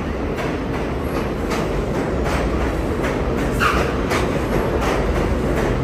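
A New York City subway train of R142-family cars running steadily, with a constant low rumble and a regular clickety-clack of wheels over rail joints. A brief higher squeak sounds a little past halfway.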